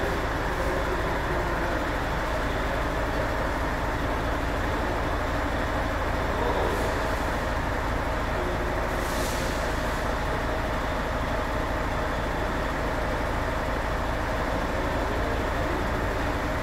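Steady machinery drone inside a pigeon transport trailer, an even low hum under noise, with a brief faint hiss about nine seconds in.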